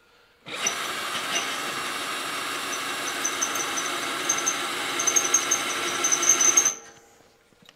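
Cordless drill running under load as its bit cuts into a steel plate, starting about half a second in and stopping near the end. A high squeal from the bit comes and goes in the last couple of seconds.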